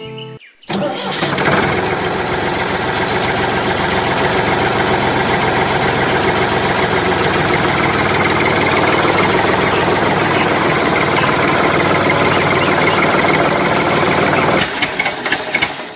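Tractor engine sound effect running steadily, starting about a second in; near the end it breaks into a few knocks and then cuts off suddenly.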